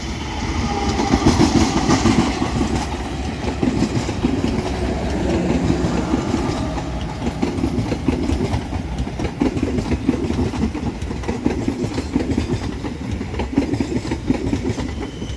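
Progo passenger train passing close by: the diesel locomotive goes by first, loudest about a second or two in, then a steady run of coaches with the wheels clattering over the rail joints.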